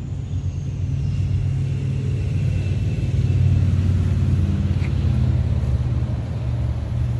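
Hyundai Elantra's engine running through an aftermarket HKS dual-outlet exhaust: a steady, deep exhaust rumble that swells slightly midway.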